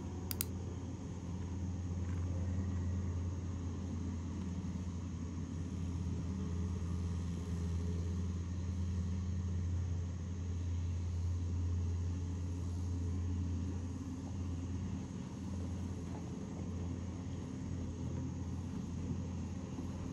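Steady low motor hum, as of an engine running nearby, with a faint high steady whine above it.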